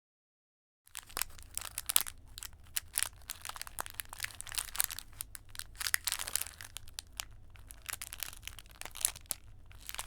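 Plastic PET bottle being crinkled and squeezed to imitate a crackling campfire: a dense, irregular run of small crackles and sharp snaps that starts about a second in, over a faint low rumble.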